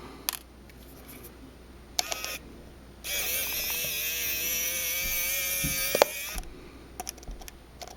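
Small battery-powered precision electric screwdriver with a Phillips bit running for about three seconds with a steady whine that sinks slightly in pitch, backing out a screw. A few light clicks come before it and a sharp click comes near the end of the run.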